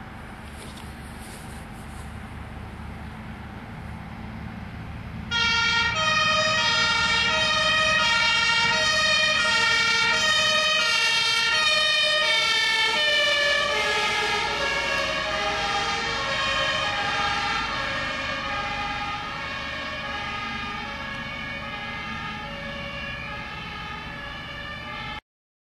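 Fire engine, a Dutch aerial ladder truck, approaching with a low engine and tyre rumble. About five seconds in, its two-tone siren switches on loud, alternating steadily between a high and a low note. Its pitch drops as it passes, and it fades as it drives away.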